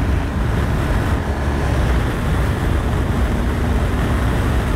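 Steady wind rumble on the microphone of an action camera mounted low on a moving motorcycle, with the motorcycle's engine and tyre noise beneath it.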